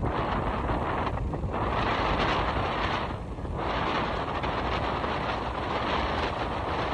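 Wind rushing over the microphone of a moving vehicle, mixed with road noise, easing briefly twice.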